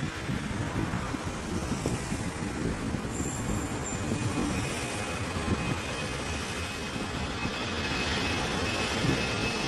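Distant Boeing 737 jet engines at takeoff power as the airliner starts its takeoff roll. A rumble grows slowly louder, and a thin steady whine comes in about four seconds in.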